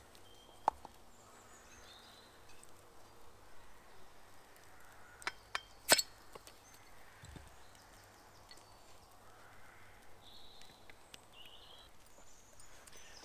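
A crown cap is prised off a glass ale bottle with a bottle opener: a few sharp metallic clicks and snaps, the loudest about six seconds in. Later comes the faint sound of beer being poured into a wooden cup.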